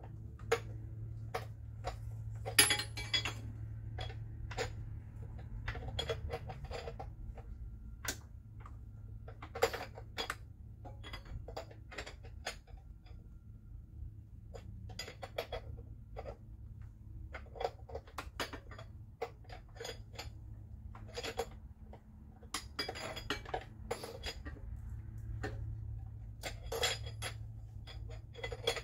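A metal wrench clinking and clicking against engine-bay hardware as it is worked in a tight spot, in irregular taps with a few quick runs of clicks. A steady low hum sits underneath.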